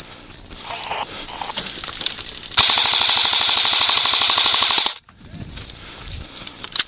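Airsoft electric gun firing one full-auto burst of a little over two seconds, a very fast even rattle that cuts off suddenly.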